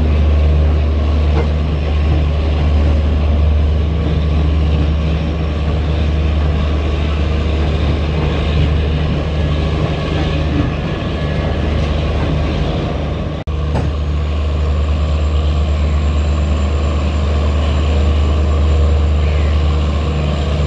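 Diesel engine of an Indian Railways train running with a steady, loud low drone. About 13 seconds in it cuts out for an instant, then carries on with a faint high whine added.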